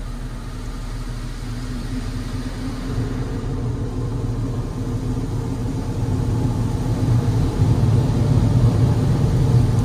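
Automatic conveyor car wash equipment heard through the closed cabin of a car: a steady low rumble of the wash machinery that grows louder over the last few seconds as the car nears the exit dryers.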